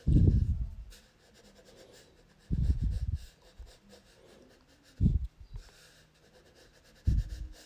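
Black Crayola crayon scratching across paper in quick shading strokes, with four loud, low puffs of breath on the microphone, about one every two and a half seconds.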